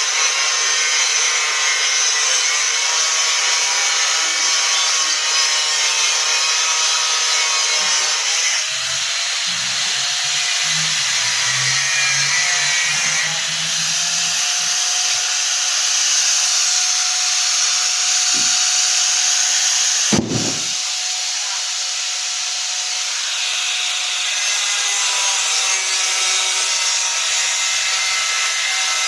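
A power tool running continuously with a steady whine, and a sharp click about twenty seconds in.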